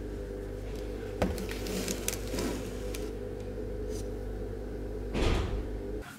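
A steady low hum with light clicks and knocks as a wicker basket of vegetables is handled on a wooden table, with a louder rustling knock about five seconds in; the hum stops abruptly near the end.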